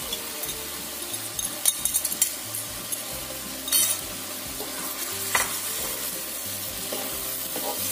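Sliced string beans and oyster mushrooms sizzling as they stir-fry in a wok. A wooden spatula scrapes and knocks against the pan a few times, and beaten egg is poured into the hot pan partway through.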